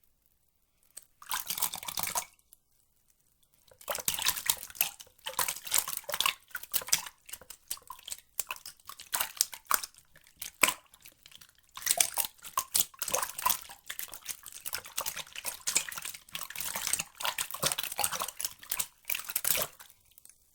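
Water splashing and trickling in short, irregular bursts with brief pauses between. A short burst comes about a second in, then a longer stretch runs from about four seconds in until it stops just before the end.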